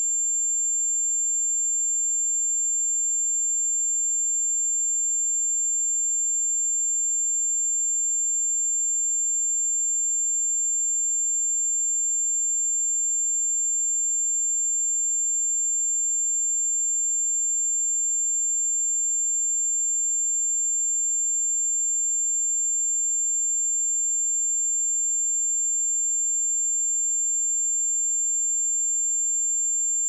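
A steady 7313 Hz sine-wave test tone: one pure, high-pitched whistle held at constant pitch and level.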